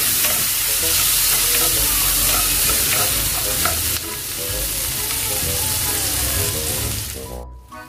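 Onion, garlic and tomato sizzling in hot butter and oil in a frying pan while a plastic spatula stirs and scrapes them. The sizzle steps down a little about halfway and drops away abruptly near the end.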